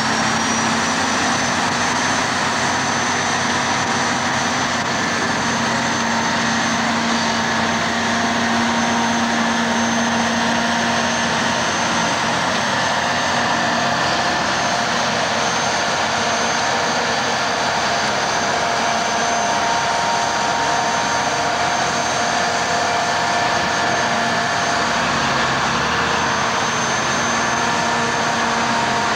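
Diesel engines of AEC Mercury dump trucks and earthmoving plant running, a steady, unbroken drone with hiss.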